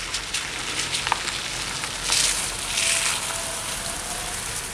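Nissan Micra hatchback driving up on a wet, slushy path, its tyres hissing and swelling loudest about two to three seconds in as it comes close. A faint steady whine follows as it pulls up.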